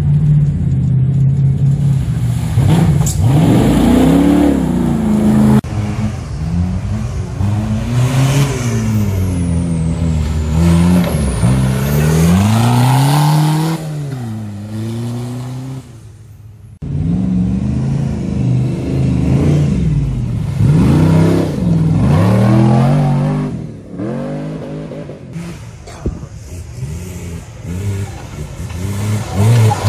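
Off-road 4x4 engines revving hard at full throttle, the pitch climbing and falling over and over. The sound drops away briefly a little past halfway, then picks up again.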